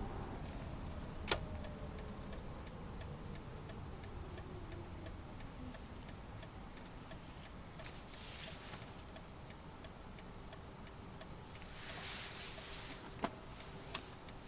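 Turn-signal indicator ticking steadily inside a Toyota Alphard's cabin, about one and a half clicks a second, over quiet road noise, with a couple of sharper clicks.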